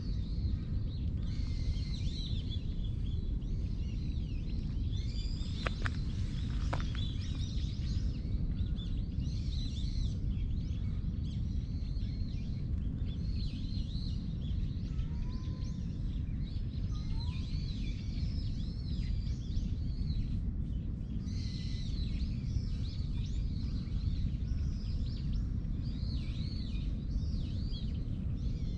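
Small birds chirping and twittering continuously over a steady low outdoor rumble, with two faint clicks a second apart.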